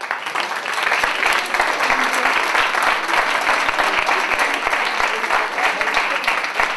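Audience applause: many people clapping, building in the first second and then holding steady.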